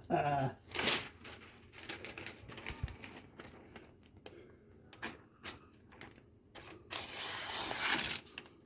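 A sheet of paper being handled and sliced with a freshly sharpened knife edge to test its sharpness: crisp rustling and short cutting ticks, then a longer slicing stroke about seven seconds in.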